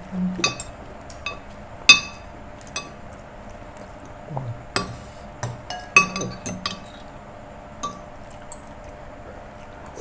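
Metal spoons clinking against ceramic plates and bowls while eating, in scattered single clinks with a short ring; the sharpest comes about two seconds in.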